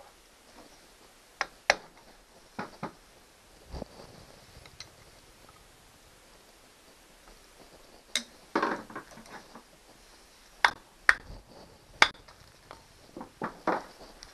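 Metal hand tools and outboard engine parts clinking and knocking on a workbench during a teardown: irregular sharp clinks, a few of them loud, with a couple of short rattles.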